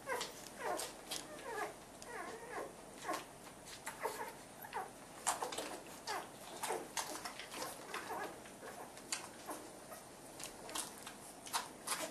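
Newborn Rhodesian Ridgeback puppies squeaking and whimpering: a stream of short high cries, each falling in pitch, one after another.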